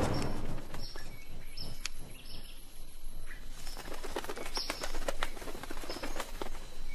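Hummingbirds calling during a territorial fight over flowers: a scatter of sharp, clicky chips and brief high squeaks, repeated irregularly.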